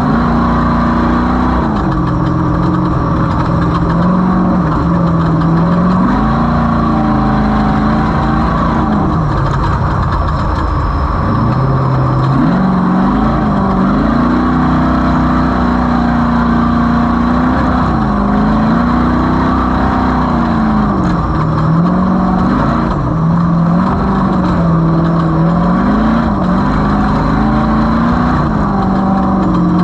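Engine of a Skull Rush 250 running under changing throttle, its pitch rising and falling again and again over a steady drone, with a faint steady high whine.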